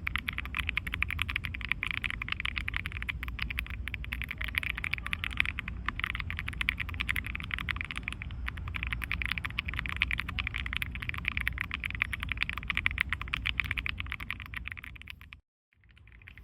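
Rapid, continuous typing on an Aula mechanical keyboard: a dense stream of clicks over a low rumble. It stops abruptly near the end, then resumes more quietly.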